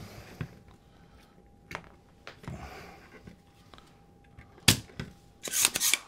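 Scattered sharp clicks and taps of small hand tools and electronic parts handled on a workbench. The loudest click comes about three-quarters of the way in, followed by a short flurry of clatter near the end, over a faint steady tone.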